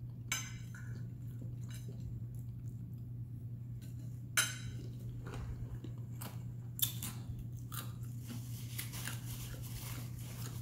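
Mouth-chewing sounds with a few sharp clicks of a metal fork against a glass bowl, one loud about four seconds in, then a paper napkin crinkling in the hands near the end. A steady low hum lies underneath.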